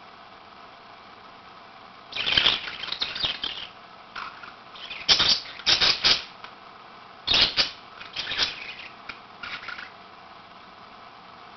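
Pet budgerigars making short, noisy bursts of sound in four groups, about two, five, seven and a half and nine and a half seconds in. The loudest bursts come around five to six seconds in.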